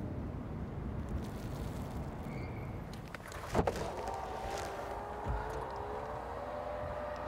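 Steady low hum of passing traffic and vehicles. About three and a half seconds in there is a single sharp knock, and after it a few faint sustained tones that step up slightly in pitch near the end.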